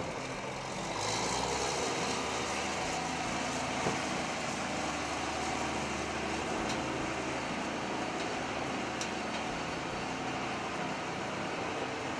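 Diesel engine of a 2007 Case IH STX480 four-wheel-drive tractor running steadily, growing louder about a second in.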